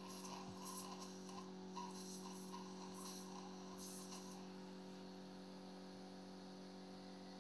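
Faint steady electrical hum, with a few soft, faint scratchy sounds in roughly the first four seconds.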